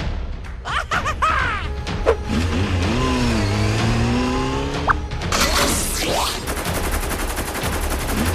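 Battle sound effects for an animated robot fight: sweeping electronic zaps that rise and fall, then a fast, even volley of gunfire sounds over the last couple of seconds, with music underneath.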